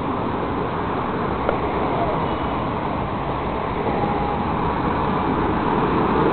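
City road traffic: buses and cars passing close by with a steady rumble of engines and tyres, growing a little louder about four seconds in as an articulated bus goes past.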